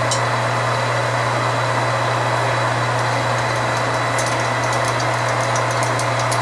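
Metal lathe running steadily at a slow speed, its motor and drive giving an even hum. Light scattered ticks come in during the second half.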